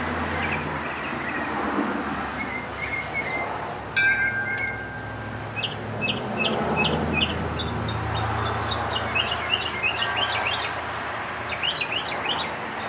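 Small birds chirping in short, quick repeated notes, in clusters through the second half, over a steady background rush. A sharp click with a brief note about four seconds in.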